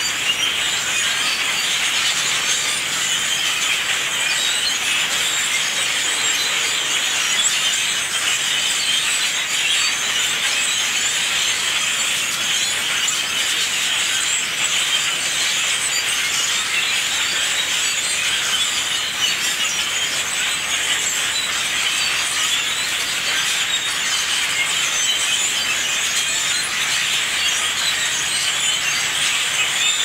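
Large flock of blackbirds calling together from bare trees: a dense, steady chorus of many overlapping high-pitched calls.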